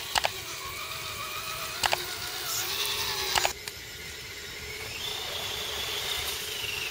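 Electric motor and gearbox of an RC scale truck whining, the pitch wavering with the throttle. Three pairs of sharp clicks come in the first three and a half seconds. After a dip, a higher whine rises near the end.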